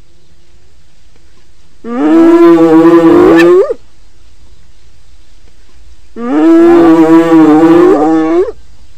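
Hyena calling twice, about four seconds apart. Each call is a drawn-out, wavering cry about two seconds long that sweeps up in pitch at the end.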